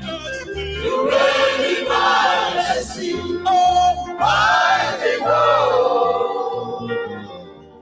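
Church praise team singing gospel music, a male lead voice with group voices, over guitar and bass accompaniment. The music fades down near the end.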